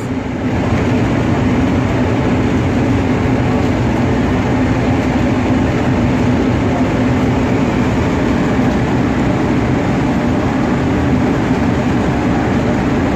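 A ship's machinery running with a steady rumble and a constant low hum.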